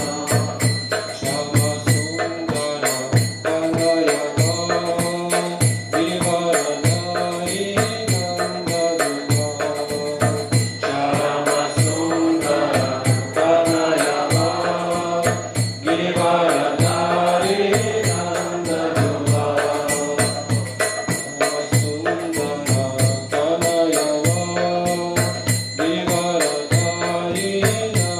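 Devotional bhajan: a man sings a chanted melody over a mridanga drum beaten in a steady, even rhythm. Small hand cymbals jingle along with the beat.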